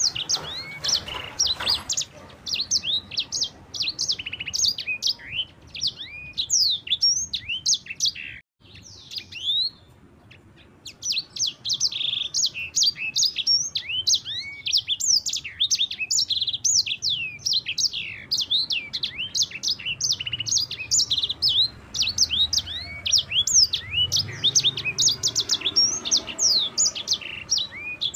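Yellow-fronted canary (sanger/mozambik) singing a fast, continuous rolling song of high chirps and down-slurred whistles. The song breaks off briefly about eight seconds in, then resumes just as dense.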